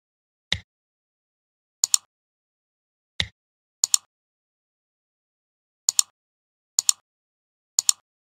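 Computer mouse clicks: five crisp paired ticks, each a button press and release, a second or two apart. Two duller single clicks with more low end come about half a second and about three seconds in.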